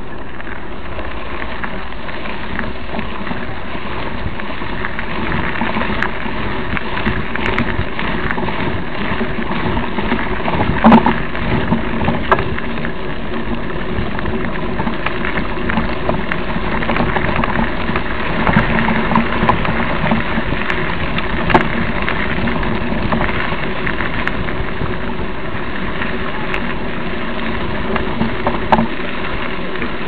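Steady rushing and rattling of a mountain bike ridden along an overgrown dirt trail, tall dry grass and brush sweeping against bike and rider. A few sharp knocks from bumps in the trail, the loudest about eleven seconds in.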